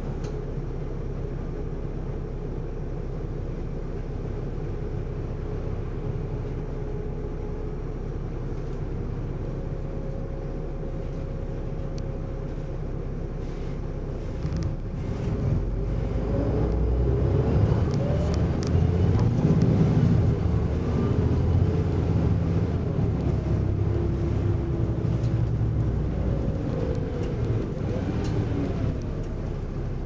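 Volvo B7RLE bus's six-cylinder diesel heard from inside the saloon: idling steadily at first, then about halfway through it revs up as the bus pulls away, its pitch rising and falling through gear changes, and easing off near the end.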